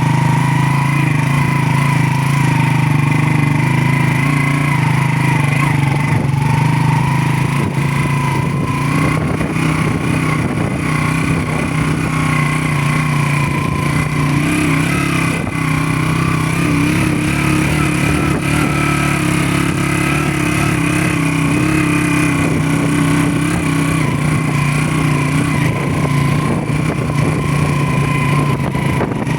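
Motorcycle engine running steadily under way, its pitch wavering slightly with small throttle changes.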